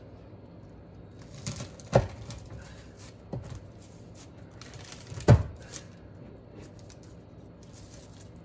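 A long knife cutting through a baked puff pastry crust, with crackling of the crisp pastry and paper, and two sharp knocks about two seconds in and again about five seconds in, plus a lighter one between them.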